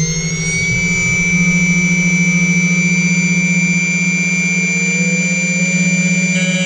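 Portable key-cutting machine's cutter motor running up to speed: its whine finishes rising in the first second, then holds a steady hum with high, thin tones above it.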